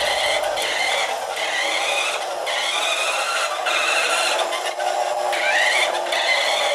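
Electric drive motor and gearbox of a Carson Mercedes-Benz Arocs 1:20 RC truck whining as it drives, the pitch rising as it speeds up, with several brief stops and restarts.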